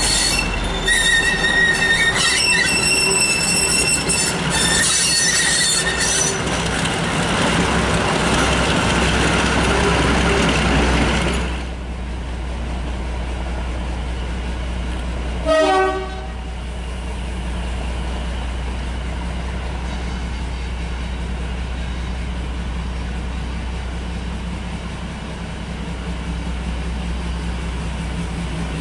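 Class 42 Warship diesel-hydraulic locomotive passing close under power, its wheels squealing in high steady tones for the first eleven seconds or so before it is gone. A short horn blast sounds about halfway through, over the steady low hum of an idling diesel engine.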